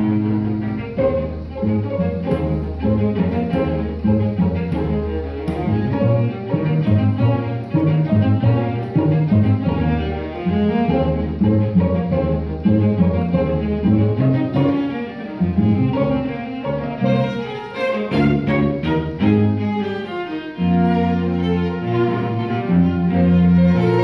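String quartet of two violins, viola and cello playing live: many quick, short notes over held low notes.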